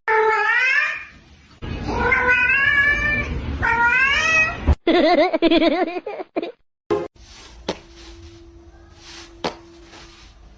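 A domestic cat meowing three times in long, loud calls of about a second each. After that comes a shorter wavering cry, then quieter sound with a faint steady hum and a few clicks.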